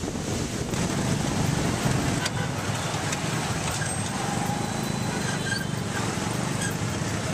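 Street traffic heard from an open passenger cart riding among motorcycles: a steady mix of small motorcycle engines and road noise.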